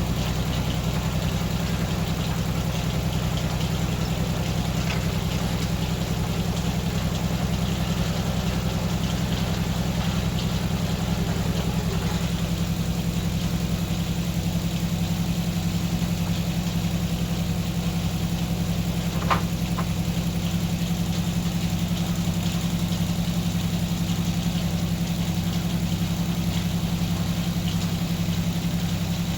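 The engine driving an antique sawmill, running at a steady speed. Extra higher-pitched noise over it eases off about twelve seconds in, and there is a single sharp click about 19 seconds in.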